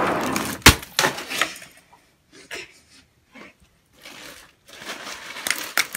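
A block of ice thrown down onto concrete, hitting with one sharp loud crack about a second in, followed by a few lighter clicks of ice pieces. A few more small knocks near the end.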